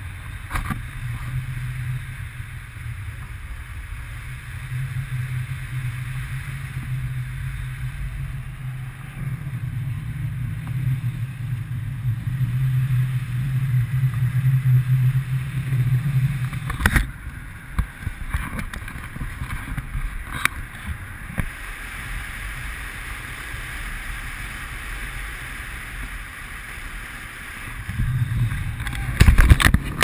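Wind buffeting an action camera's microphone in paragliding flight: a steady low rush and rumble, with a sharp knock about halfway through and louder, choppier buffeting near the end.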